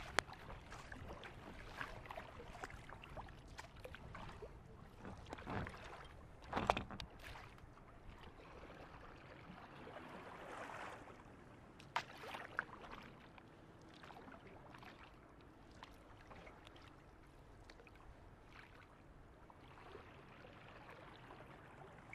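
Water splashing and lapping against the hull of a plastic Rainbow Oasis 430 kayak as it is paddled, with uneven paddle splashes. The loudest splash comes about six and a half seconds in, and a sharp tap comes near the middle.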